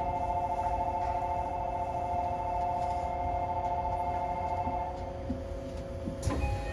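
Steady electronic two-tone signal sounding in the cab of a Tokyo Monorail train stopped at a station, stopping about five seconds in, over a constant equipment hum; a sharp click follows near the end.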